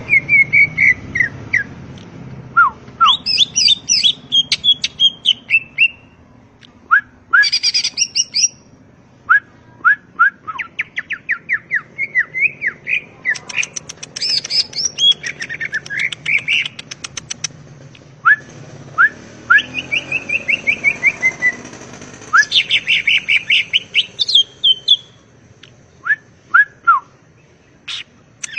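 Green leafbird (cucak ijo) singing a loud, varied song of rapid chattering trills, sharp whistled notes and quick downward-sweeping calls, in phrases with short pauses between them.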